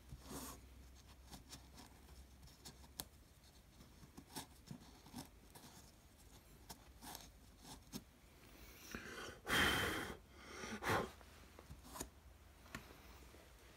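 Cloth rag rubbing over bare pine wood as Danish oil is wiped on: soft scuffing strokes with small taps, and two louder swishes about two-thirds of the way through.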